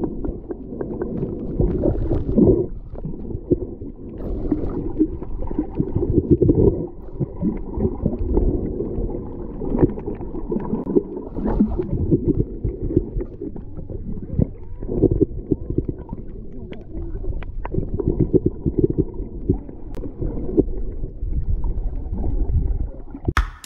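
Muffled underwater sound of sea water moving around a submerged GoPro Hero 8: a dull, continuous rumbling and gurgling with many small scattered clicks and knocks, all heard dull and low through the water.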